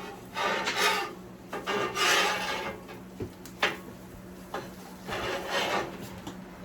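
Spatula scraping across a flat-top griddle in three strokes, chopping scrambled eggs apart, with a sharp tap about three and a half seconds in. A steady low hum runs underneath.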